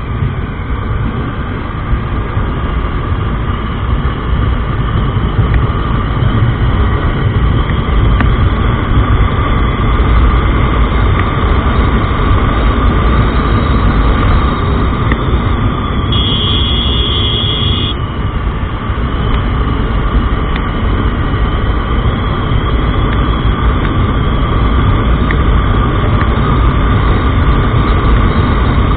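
TVS Apache RTR 160 motorcycle's single-cylinder engine running hard at high revs while accelerating to around 100 km/h in a top-speed run, under a heavy rush of wind on the microphone. A short high tone sounds for about two seconds midway.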